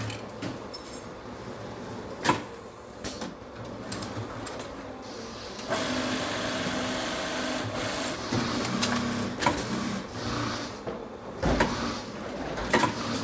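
Factory workstation noise: scattered knocks and clatter of parts being handled, with a steady machine hiss and hum starting about six seconds in.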